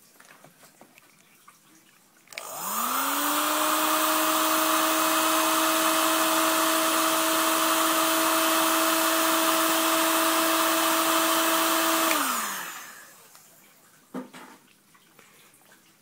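Electric heat gun switched on, its fan motor winding up to a steady whine over the rush of hot air, blowing on heat-shrink tubing to shrink it; after about ten seconds it is switched off and the whine falls in pitch as the fan runs down.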